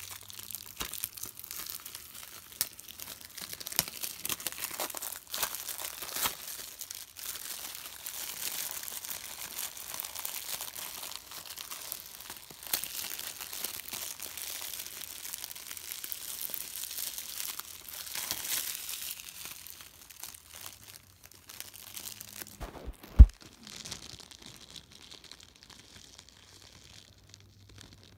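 Clear plastic shrink wrap being torn and peeled off a DVD case, crinkling and crackling continuously for about twenty seconds. Then it quietens and there is a single sharp, loud thump.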